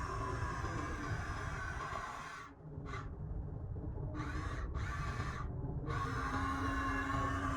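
Electric motors and plastic gearboxes of RC Huina construction models whirring, stopping and starting again abruptly several times in the middle as the controls are worked, with a low steady hum joining about six seconds in.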